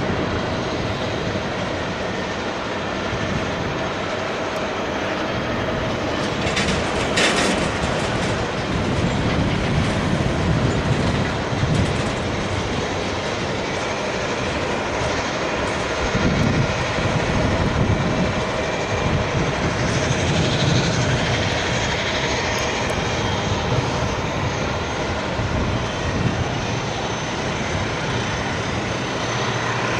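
Boeing 777-300ER under pushback: a steady jet whine and rush, with the low rumble of the pushback tug's engine swelling in waves through the middle. A short loud burst of noise comes about seven seconds in.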